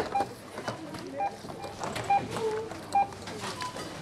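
Supermarket checkout barcode scanner beeping as items are scanned through: four short single-pitch beeps, roughly one a second, over low store murmur.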